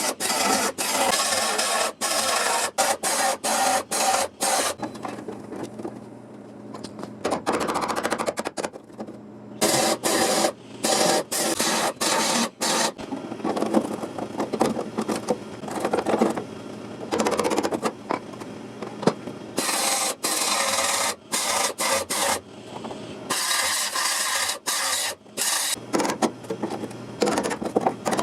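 MIG welder crackling in short stop-start bursts, tacking and stitching a steel patch panel into a car's rusted sill and wheelhouse.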